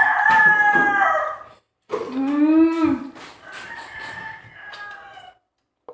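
Roosters crowing: a long call that ends about a second and a half in, then a lower, shorter call about two seconds in, and a fainter drawn-out crow near the end.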